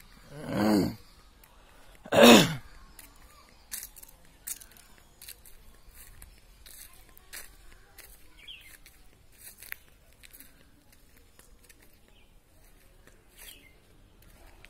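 Two short, loud calls with a rise-and-fall in pitch, about a second and a half apart, followed by footsteps crunching on dry leaves and dirt with scattered faint clicks.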